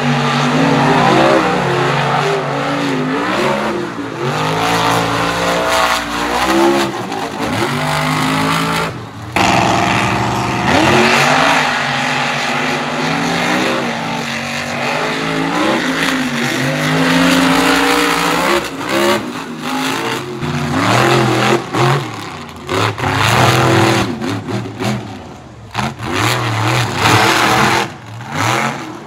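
Monster truck engines revving hard and easing off again and again as the trucks race over sand humps, the pitch rising and falling with each burst of throttle.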